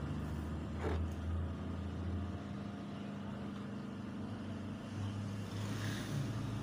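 A steady low mechanical hum, like a motor or engine running, with a brief soft noise about a second in.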